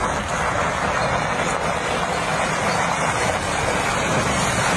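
Semi truck's diesel engine running under load, with a steady rushing noise from its wheels churning on the icy road.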